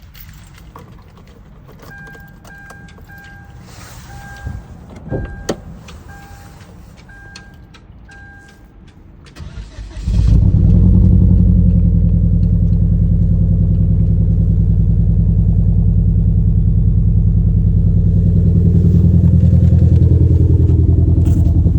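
A car's warning chime beeps about twice a second for several seconds, among a few clicks. Then the 2011 Hyundai Genesis Coupe's engine cranks and starts about halfway through, and it idles loudly and steadily with the cylinder 4 misfire that is its common fault.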